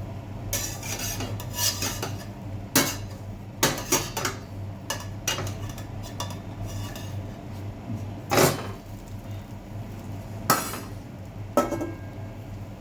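A spatula scraping and clinking against a frying pan while a pancake is turned and lifted, with several sharp knocks scattered through, over a steady low hum.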